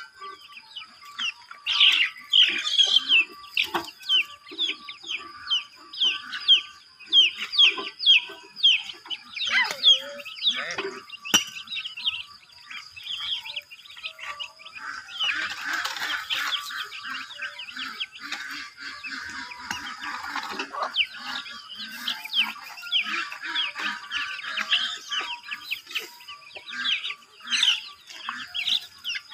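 Chickens clucking and chirping, with many short high calls in quick succession over a steady faint high tone.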